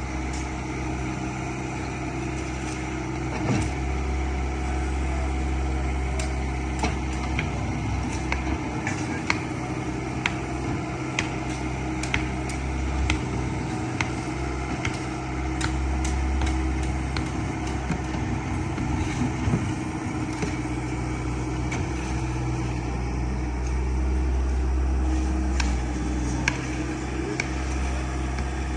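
An engine running steadily with a low hum, with many short sharp clicks and knocks scattered over it.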